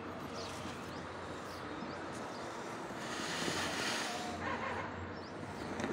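Black tarpaulin sheet with drying grain on it rustling as it is lifted and folded, a noisy rustle lasting about a second starting about three seconds in, over a faint steady outdoor hum.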